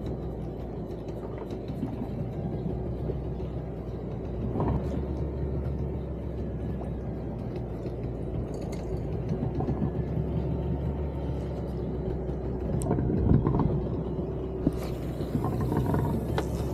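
Small fishing boat's engine running steadily under way, a low, even rumble. A hiss rises over it near the end.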